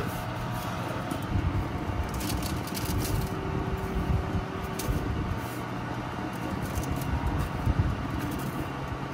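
Steady mechanical hum with a low rumble, like an oven or kitchen fan running. Over it come a few light clicks and scrapes of tongs on a baking tray as baked cheese patties are turned over.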